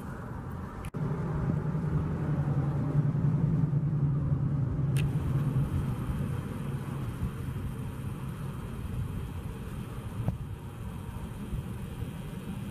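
A vehicle engine running close by, a steady low hum that is strongest for the first few seconds after a brief dropout and then eases, over a bed of road traffic noise. A single sharp click about five seconds in.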